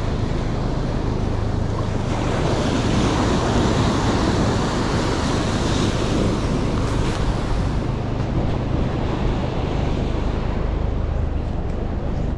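Ocean surf washing up the beach, with wind buffeting the microphone as a steady low rumble.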